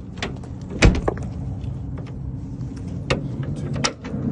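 Truck compartment lock and door being worked with a key: sharp metal clicks and a clunk, the loudest about a second in, then a few more clicks, over a steady low hum.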